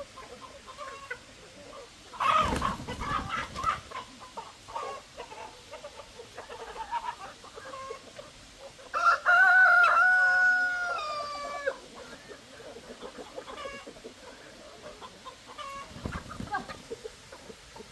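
Chickens clucking on and off, with a short loud burst of noise about two seconds in. About nine seconds in a rooster crows once, a long call that holds steady and then drops at the end.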